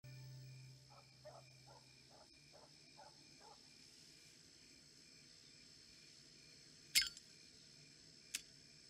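A metal cigarette lighter being opened and struck: a loud sharp click about seven seconds in and a second, smaller click about a second and a half later. Under it is a faint steady drone of crickets.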